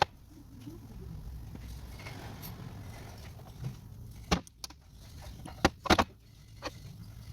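Several sharp metallic clinks of metal parts or tools being handled, one about halfway through and a quick cluster of three a little later, over a low steady hum.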